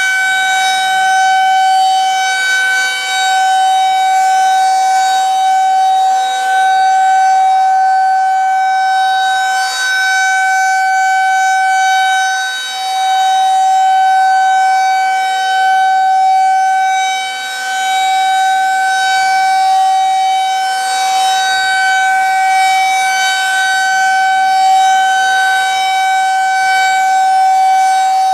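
Federal Signal outdoor warning siren sounding a steady alert tone during a full test. The pitch holds steady with no wail, and the loudness dips briefly every few seconds.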